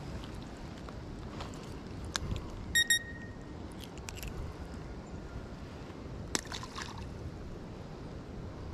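Steady low wind rumble on the microphone, with a few light clicks from handling fishing tackle and two quick high-pitched pips close together about three seconds in.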